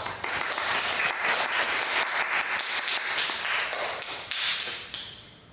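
Students applauding at the end of a lecture, many quick claps together that die away near the end.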